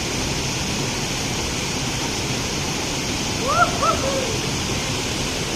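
Steady rushing noise of flowing water, with two or three short high calls that rise and fall about three and a half seconds in.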